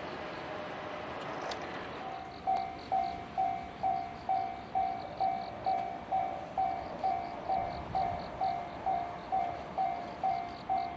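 Japanese railway level crossing's warning bell starting up about two seconds in and ringing a steady 'kan-kan', about two strikes a second, as a fading rush of train noise dies away.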